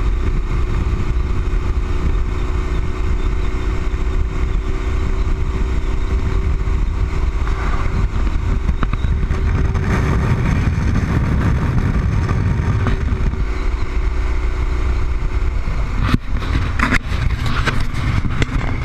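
Motorcycle cruising at highway speed: heavy wind rumble on the bike-mounted microphone over the engine and tyre noise, with a steady drone. A few sharp knocks and rattles come near the end.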